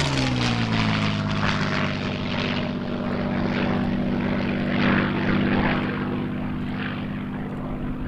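Rolls-Royce Merlin V12 of a Hispano HA-1112-M1L Buchón, a licence-built Messerschmitt 109 G-2, pulling up into a steep climb. Its note drops in pitch over about the first second as the fighter passes and draws away, then holds steady and rough as it climbs.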